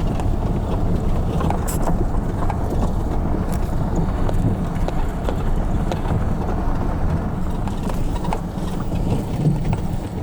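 Ford Escape driving on a rough dirt road, heard from inside the cabin: a steady low rumble of engine and tyres with many small scattered knocks and rattles from the bumps.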